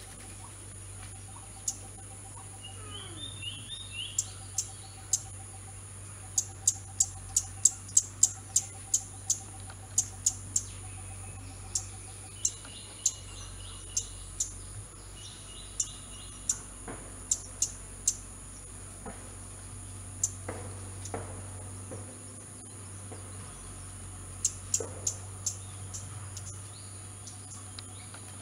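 Insect and bird chorus: a steady high-pitched insect buzz throughout, with many short sharp high chirps that come fastest and loudest about a quarter of the way in. Softer bird calls run underneath, including a repeated low pulsing note and a few brief trills.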